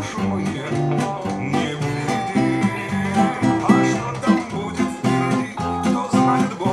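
Acoustic guitar played fingerstyle: a continuous run of plucked notes and chords in a steady rhythm.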